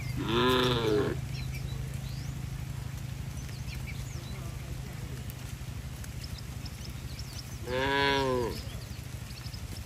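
Cow mooing twice, about seven seconds apart. Each call is under a second long and rises then falls in pitch, over a steady low hum.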